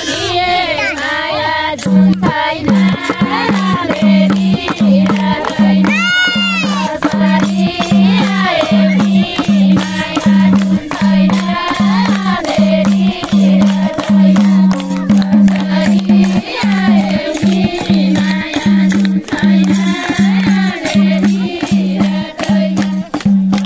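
Nepali panche baja ensemble playing folk music: a winding melody line over a steady drum beat that comes in about two seconds in, with frequent cymbal strokes.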